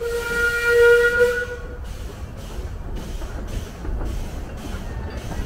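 A narrow gauge steam locomotive's whistle blows once, a single steady note lasting a little under two seconds. After it the train runs on with a low rumble.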